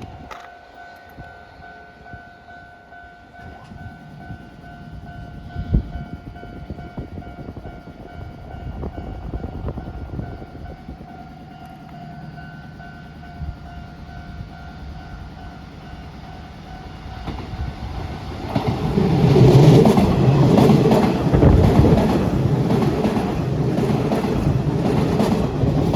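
Japanese level-crossing warning bell ringing with a steady two-tone note, then an electric train runs over the crossing about eighteen seconds in: a loud rumble with a regular clatter of wheels over rail joints that drowns out the bell.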